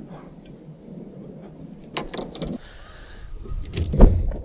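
Fishing gear being handled on a bass boat: a few sharp clicks about two seconds in, then a heavy thump on the deck near the end, over a low steady rumble.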